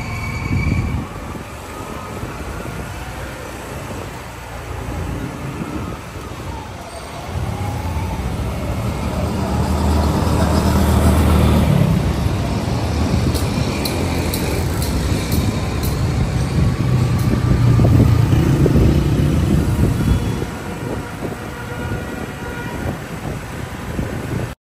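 Motor vehicle engines running with street traffic noise. The engine rumble swells twice, once near the middle and again toward the end.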